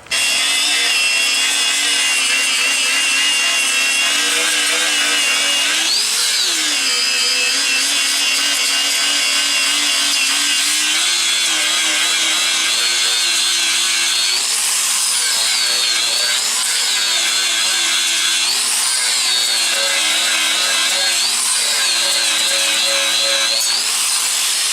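Angle grinder grinding welds down on a steel bumper, running without a break. Its whine briefly rises in pitch and falls back several times over the hiss of the disc on the steel.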